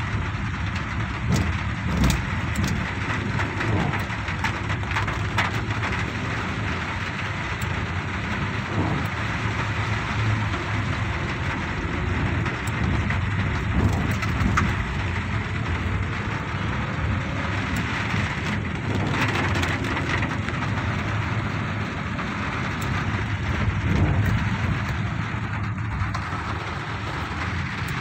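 Car driving on a wet, waterlogged street, heard from inside the cabin: a steady low engine hum under a constant hiss of road and water noise, with a few faint knocks.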